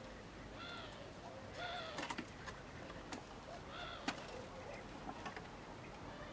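Three short animal calls, each rising and falling in pitch, the second about a second after the first and the third some two seconds later, among light clicks and taps.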